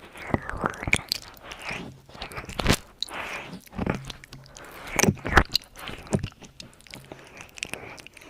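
ASMR mouth sounds close to the microphone: irregular wet clicks and pops, with a few short breathy swells.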